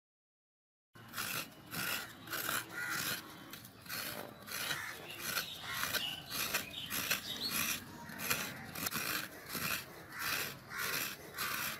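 Fresh coconut flesh being scraped out of a half-shell onto a steel plate: rasping scraping strokes, about two a second, starting about a second in.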